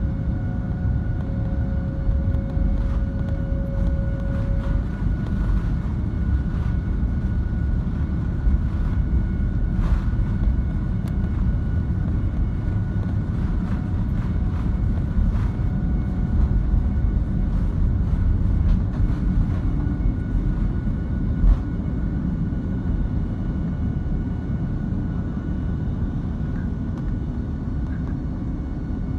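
Jet airliner's turbofan engines at takeoff power heard from inside the cabin over the wing: a loud, steady rumble through the takeoff roll and lift-off. It has a few scattered short knocks, and a whine that stops about five seconds in.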